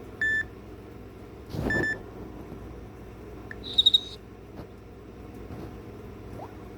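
Samsung Galaxy S3 phone speaker giving short electronic tones: a brief beep just after the start, a second one about a second and a half later with a rustle of handling under it, then a quick high triple chirp, the loudest, about four seconds in.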